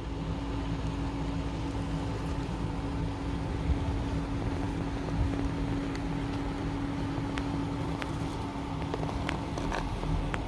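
Steady hum of a Magnorail drive's small electric motor, with one constant tone, running as it pulls a model van along the road. A few light clicks come in the last few seconds.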